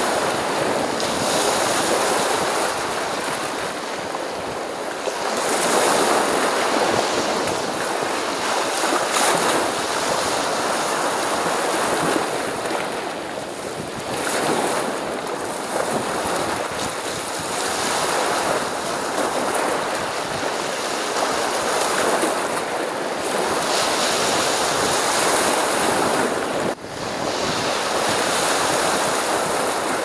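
Black Sea waves breaking and washing up on the shore, the surf swelling and ebbing every few seconds.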